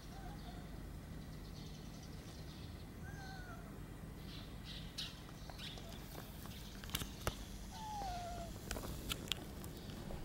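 Orange tabby tomcat giving three short meows that fall in pitch as it walks up, the clearest about eight seconds in. Sharp clicks of handling come in the second half.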